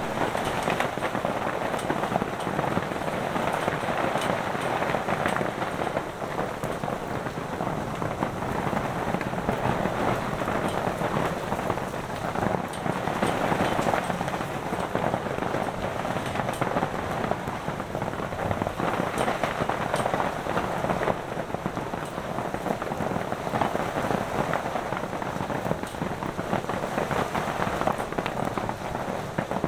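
Heavy rain with hail beating on the roof overhead: a dense, steady patter dotted with many sharp individual strikes.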